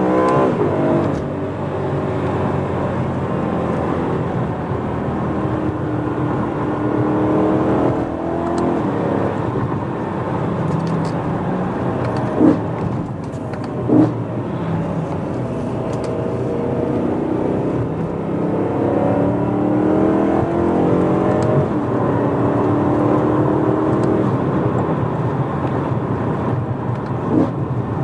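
BMW E92 M3's V8 engine, with a decat X-pipe and stock rear box, heard from inside the cabin while driving: the engine note climbs and falls several times as the car accelerates and eases off. Two short thumps come about halfway through.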